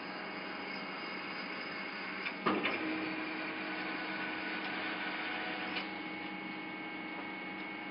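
Large-nut tapping machine running with a steady electric hum. About two and a half seconds in there is a sharp clank, after which a steady higher hum sets in and holds; a lighter click follows near six seconds.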